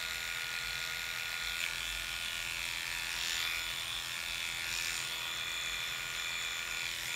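Electric pet grooming clippers running with a steady hum, the blade shearing the fur on a dog's tail short.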